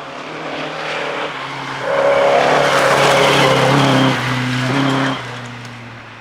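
Classic rally car at full throttle approaching and passing on a stage, its engine note loudest from about two seconds in, with the tyres hissing on the loose surface. Between about four and five seconds in the engine pitch steps down and up a few times, as on gear changes, before the car moves off and the sound falls away.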